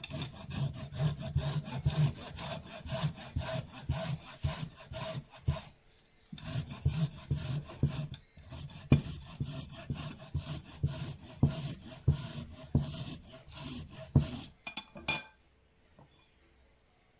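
Fresh ginger root being grated on a fine hand grater: quick, repeated rasping strokes, with a short pause about six seconds in. The strokes stop about fifteen seconds in.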